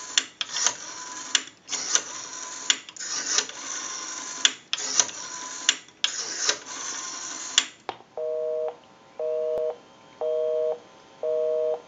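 Western Electric 233G payphone's rotary dial being wound and whirring back digit after digit, with sharp dial clicks. About eight seconds in the dialing stops and a busy signal starts: a two-tone beep pulsing on and off about once a second, because the number called is busy.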